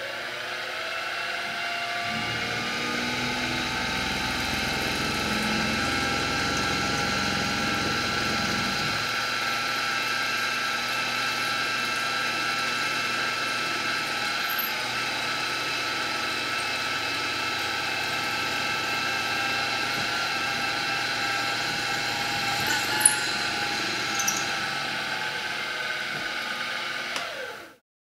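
Milling machine spindle spinning up and running with a steady motor whine while a twist drill cuts a vent hole in aluminium, the cutting heaviest over the first several seconds. The spindle is switched off and cuts out just before the end.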